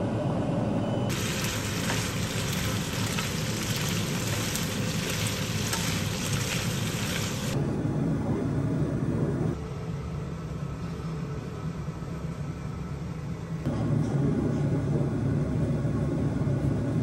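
Pasta and starchy pasta water sizzling in a hot frying pan as they are stirred together, a bright hiss that cuts off abruptly about seven and a half seconds in. A steady low rumble runs underneath throughout.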